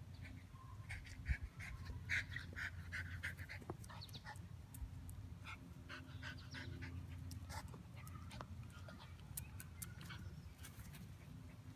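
Dogs at play: a string of short high yips and whines, quickest about two to three and a half seconds in, then more scattered, over a steady low hum.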